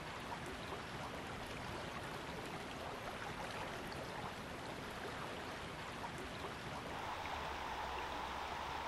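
Fast-flowing river water rushing steadily. A faint steady hum joins about seven seconds in.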